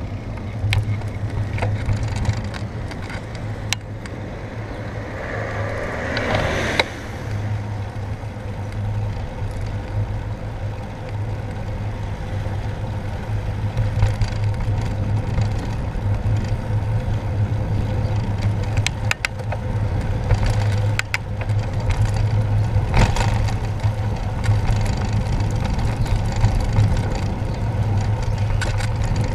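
Wind and road rumble picked up by a bicycle's handlebar-mounted camera while riding on tarmac: a steady low hum with scattered clicks from the bars. A louder rushing sound swells about five seconds in and stops abruptly about two seconds later.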